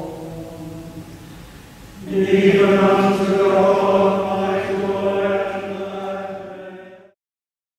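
Group of voices singing a hymn with organ. A held chord fades over the first two seconds, then the final chord comes in loud about two seconds in and is held for about five seconds before cutting off suddenly.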